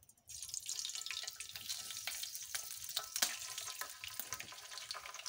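Raw chicken liver pieces hitting hot oil on a tawa and frying. A sizzle starts suddenly a moment in and keeps going, with scattered crackles and pops.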